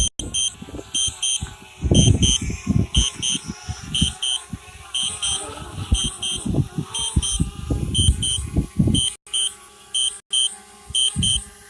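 Electronic warning beeper sounding short high double beeps, repeating about once a second at uneven spacing, over gusts of wind buffeting the microphone.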